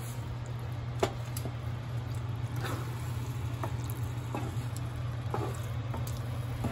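Wooden spoon stirring a thick, watery vegetable bhaji mash in a cast-iron skillet: wet squelching with occasional knocks of the spoon on the pan, the sharpest about a second in. A steady low hum runs underneath.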